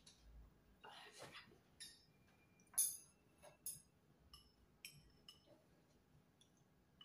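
Light clinks of a glass mug being set down on a table and of utensils against a bowl: a string of short ringing ticks, the loudest about three seconds in.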